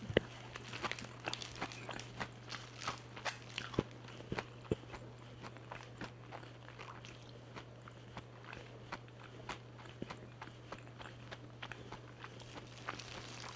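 Close-up biting and chewing of crispy fried chicken (BBQ Peel Crunch), the coating crunching in quick crackles that are densest in the first few seconds and thin out after. A steady low hum runs underneath.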